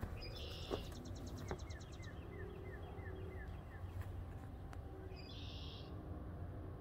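Small songbirds singing: a buzzy phrase running into a fast trill, then a run of short falling whistled notes, and another brief buzzy phrase about five seconds in.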